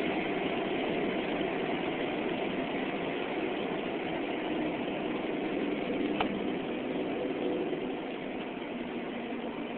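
Dodge Stratus R/T's V6 engine with tyre and wind noise, heard from inside the cabin at high speed: a steady drone. A single brief click comes about six seconds in, and the drone gets a little quieter near the end.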